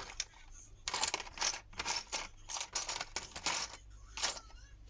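Small screwdriver clicking and scraping irregularly at a stubborn small screw inside a smartphone, a screw that is giving trouble and turns out to be damaged.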